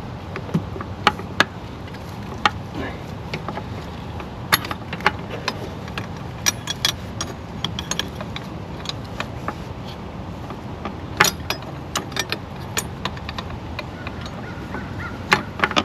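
Irregular clicks and clinks of hand tools and metal parts being worked on in a car's engine bay, over a steady low background rumble.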